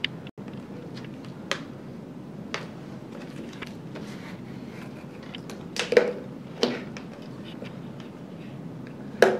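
Quiet room hiss broken by a few scattered sharp clicks and knocks from a plastic tub being handled, the loudest near the end.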